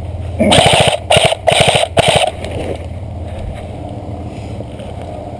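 Airsoft gun fired close by in four short automatic bursts, each a quick run of rapid shots, over about two seconds.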